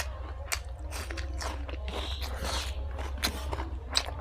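A person chewing and biting fried pork with rice close to the microphone: wet mouth clicks and crunching about every half second. A steady low hum runs underneath.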